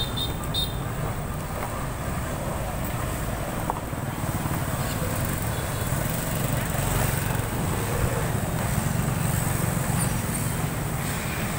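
Street traffic of motorbikes riding past with a steady low rumble, mixed with indistinct voices of people nearby.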